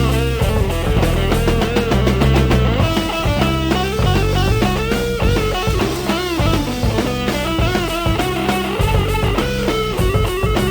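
Background rock music led by guitar, with bass and drums.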